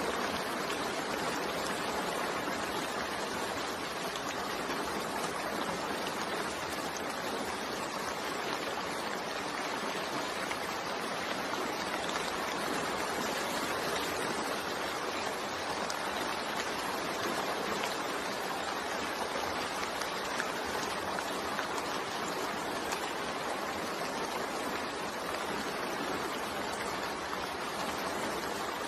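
Steady rain falling, an even unbroken hiss with a few faint drop ticks.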